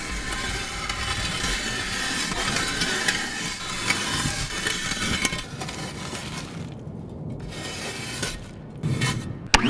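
Plastic dustpan scraping and scooping thick loose dirt and grit off a tractor cab floor: a gritty rasping full of small clicks, with a few brief pauses near the end.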